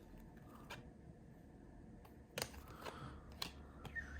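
2020-21 Panini Prizm basketball cards being handled and flipped through by hand: a handful of light, scattered clicks and soft rustles.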